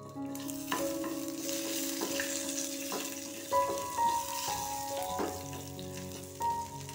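Mustard seeds, a dried red chilli and curry leaves sizzling in hot oil in a non-stick frying pan as a tempering, stirred with a wooden spatula that scrapes and knocks against the pan several times.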